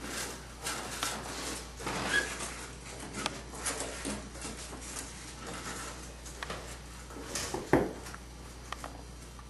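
Chess pieces set down and slid on a small chessboard: irregular light clicks and handling scuffs, with one sharper knock late on.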